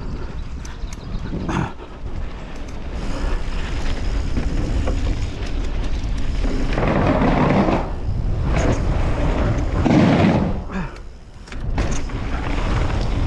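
Wind buffeting an action camera's microphone with tyre and chassis noise from a mountain bike riding a dirt trail, surging louder about 7 and 10 seconds in, with a few sharp knocks and rattles.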